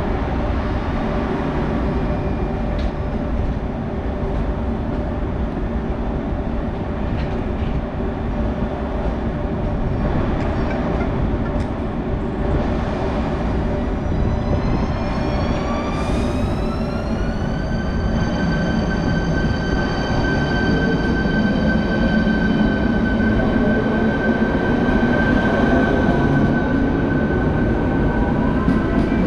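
A train running at a station platform, a steady rumble throughout. About halfway through, a whine rises in pitch for a few seconds and then holds level, with a short hiss as it rises.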